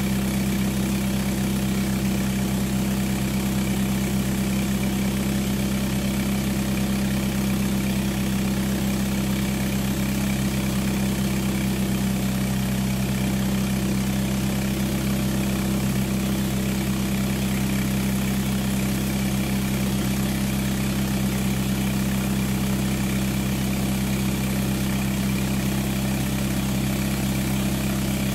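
Small diesel engine converted into an air compressor, running steadily at one constant speed with a strong low hum, powering a vapor blaster.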